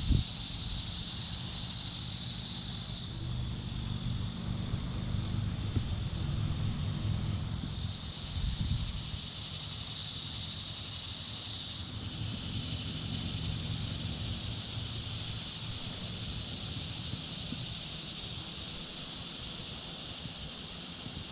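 Steady, high-pitched chorus of summer insects, its pitch stepping up and down a few times, over a low rumble of flowing creek water.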